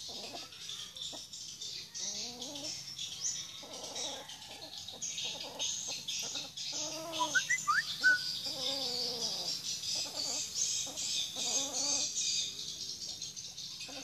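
Repeated short, pitched animal calls, several a second at times, over a steady high-pitched background hiss, with a few brief high chirps about eight seconds in.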